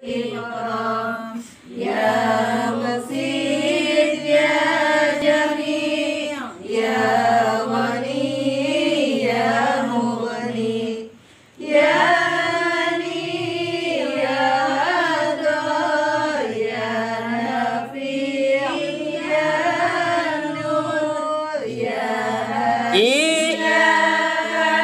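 A group of women chanting Islamic devotional verses together in unison, unaccompanied, in long phrases with short breaks between them.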